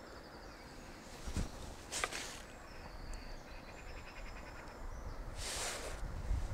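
Quiet outdoor waterside ambience with faint small-bird chirping and twittering. Two short rustles come about one and two seconds in, a longer rush of noise about five and a half seconds in, and a low rumble underneath that grows near the end.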